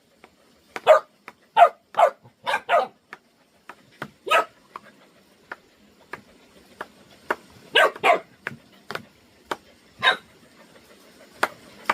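A dog barking repeatedly: about nine sharp single barks and doubled barks at uneven intervals.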